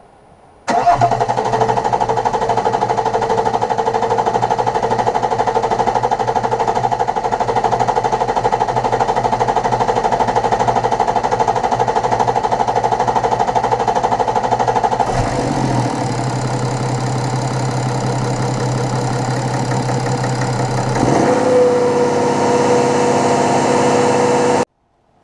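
BMW N57D30 3.0-litre inline-six diesel running on six freshly fitted injectors, with the tester's fuel-system bleed routine raising the engine speed by itself. The note shifts about 15 seconds in and rises about 21 seconds in, and the sound cuts off abruptly near the end.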